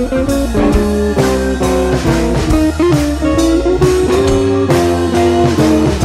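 Background music: a blues-style electric guitar tune over a steady drum beat.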